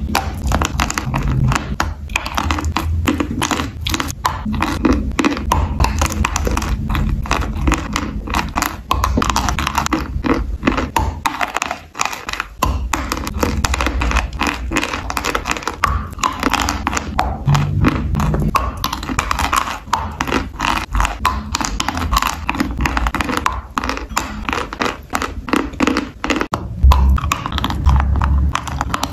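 Close-up chewing of dry, powdery natural chalk coated in clay paste: a dense, steady run of crunching clicks. Near the end a new bite into a large chalk bar starts, with a few heavier low thumps.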